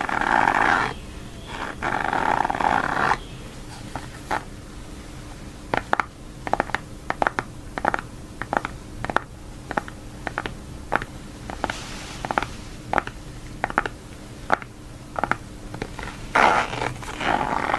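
High-heeled shoes clicking on a hard floor, sharp heel strikes at about two a second through the middle of the stretch. At the start and near the end there is a louder, noisy scuffing sound instead of the clicks.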